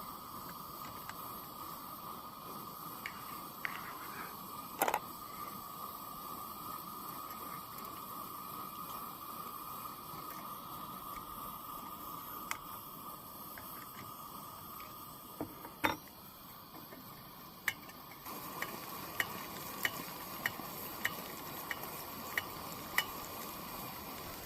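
Steady hiss of a Coleman 502A white-gas stove burner with leftover spaghetti frying in butter in a pan. A utensil knocks against the pan a couple of times, then gives a run of light ticks near the end as the spaghetti is stirred.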